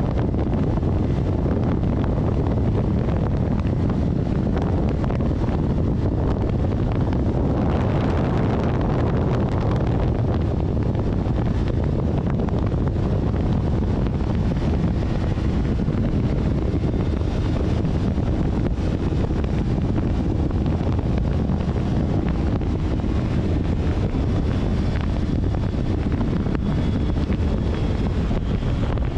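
Steady noise of a moving vehicle on the road, with wind buffeting the microphone.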